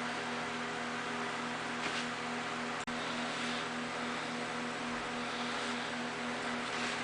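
Steady electrical hum with a layer of hiss, broken by a brief click and momentary dropout about three seconds in.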